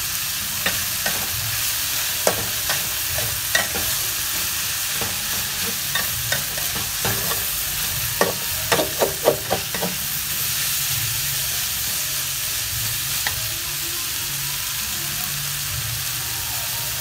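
Stir-frying in an aluminium wok: a steady sizzle of food frying, with a metal spatula scraping and clinking against the pan as chunks of luffa are turned in with shrimp and wood ear mushroom. A quick run of clinks comes about eight to ten seconds in, then the sizzle goes on alone.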